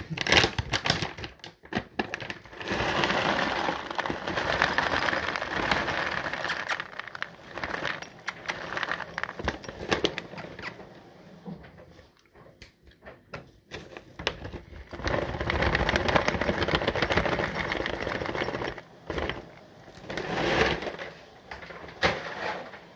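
Cat food being handled: crinkly rustling and rattling with many small clicks, in two long stretches with a quieter lull between them and a short burst near the end.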